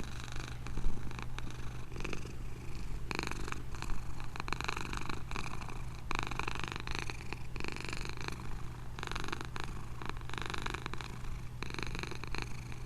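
Domestic cat purring steadily and close up, a low continuous rumble with a breathy swell and ease every couple of seconds as it breathes in and out.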